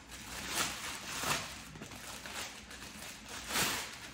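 Plastic mailer bag crinkling and rustling as it is handled and opened, with a few louder crinkles.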